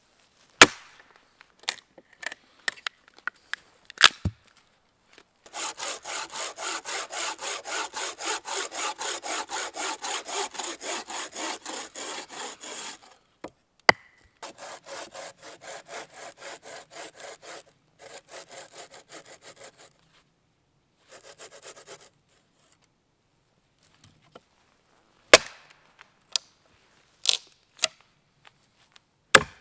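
Wooden-framed bucksaw cutting through a log on a sawbuck: a long run of quick, even rasping strokes, then a few shorter, quieter runs as the cut finishes. Sharp wooden knocks come before the sawing and again near the end, as the wood is handled and cut pieces drop.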